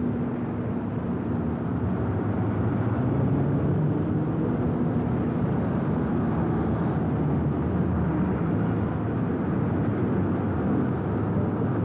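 Steady rumble of street traffic, with vehicle engines running.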